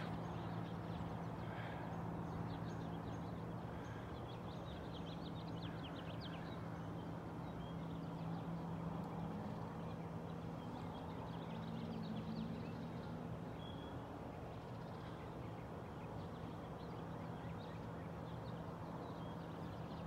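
Distant birds chirping now and then over a steady low hum of outdoor background noise.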